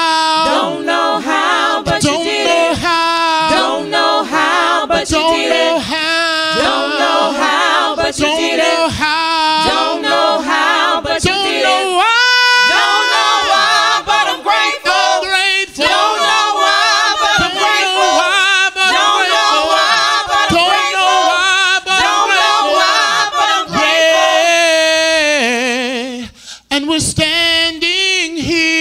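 Gospel praise team of male and female voices singing a cappella in harmony. They hold a long chord about twelve seconds in and break off briefly near the end.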